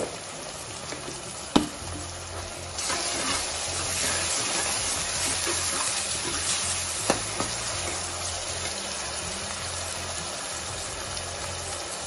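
Onion, tomato and green chilli tadka sizzling in a steel kadai while a steel ladle stirs it. The sizzle grows louder about three seconds in, and the ladle knocks sharply against the pan twice.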